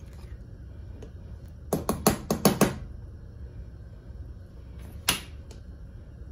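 Metal ladle clinking against the rim of a metal cooking pot: a quick run of five or six taps about two seconds in, then a single knock about five seconds in, over a low steady hum.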